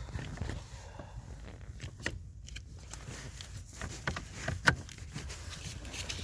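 Scattered light clicks and knocks of hands working plastic wiring connectors and trim, with one sharper click about four and a half seconds in, over a low steady rumble.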